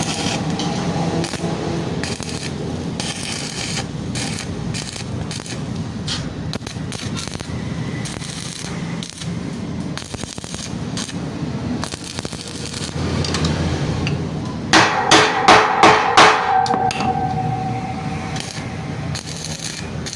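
A hammer striking metal, with scattered lighter knocks and scraping, then about five loud, quick blows near the end that leave the metal ringing.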